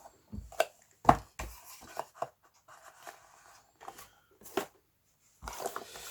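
Handling of a Swiss Army pocket knife and its packaging: a series of scattered sharp clicks and knocks, then rustling and scraping near the end.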